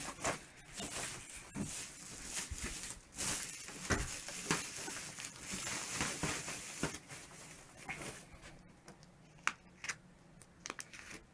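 Thin protective wrapping sheet being peeled and pulled off a flat-screen TV, rustling and crinkling with many small clicks. It thins out to a few faint ticks over the last few seconds.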